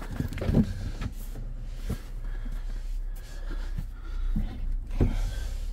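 Handling noise inside a car cabin: rustling and a couple of soft thumps as someone settles into the seat, the louder one about half a second in and another near the end, over a low steady hum.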